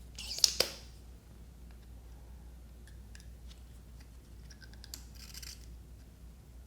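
Spring-loaded solder sucker (desoldering pump) working on a battery tab's solder joint: a sharp snap with a hiss of air about half a second in, then a shorter rasping burst of quick clicks and hiss about five seconds in.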